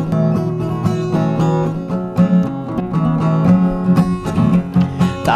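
Instrumental passage of an Amharic gospel worship song between sung lines: strummed acoustic guitar over other instruments with a steady beat.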